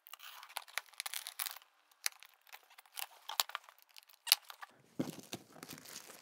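Cardboard box being opened: packing tape slit and torn, with scratching and crinkling, then the cardboard flaps pulled open and rustling. There is one sharp snap a little past the middle.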